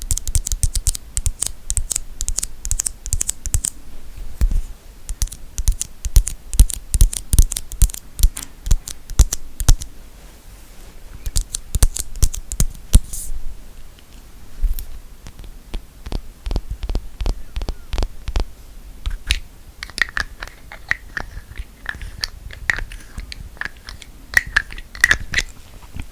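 Close-miked ASMR tapping and scratching on objects: quick runs of sharp taps and scratches, dense in the first half, sparser later, with a faint ringing tone under the taps near the end.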